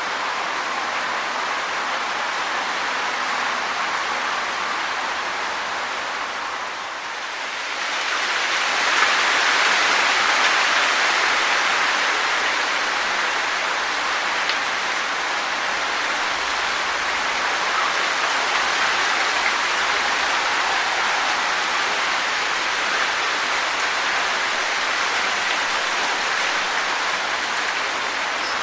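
Wind blowing through trees, leaves rustling in a steady hiss. It eases for a moment about seven seconds in, then rises again in a stronger gust.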